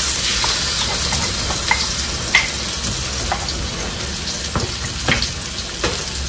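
Hot oil in a steel wok sizzling loudly as sambal paste is scraped into it from a mortar around a frying egg. The hiss starts abruptly as the paste hits the oil and then holds steady, with a few light clicks and scrapes of the spatula against the mortar and wok.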